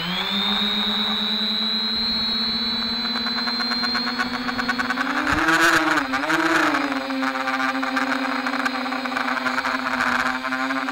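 Walkera Furious 320 quadcopter's brushless motors and propellers whining as it takes off and flies low. The steady whine creeps up in pitch over the first few seconds, then rises, dips and rises again about halfway through before holding steady.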